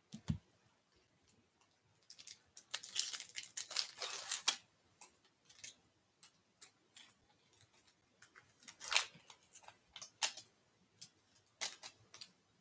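Topps baseball card pack's foil wrapper being torn open by hand: a dense run of crackling rips about two seconds in, then a few more crinkles as the wrapper is pulled apart and the cards slid out. A soft low thump comes at the very start.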